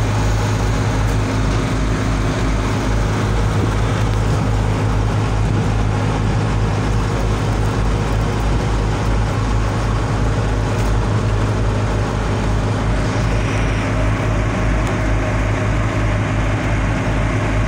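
Fishing boat's engine running steadily: a loud, even low hum with a regular throb.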